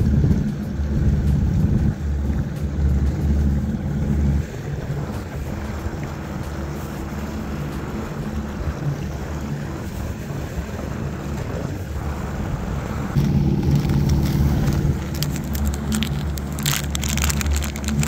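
Wind buffeting the microphone in gusts, a low rumble that rises and falls. Near the end a plastic bait package crinkles as it is torn open.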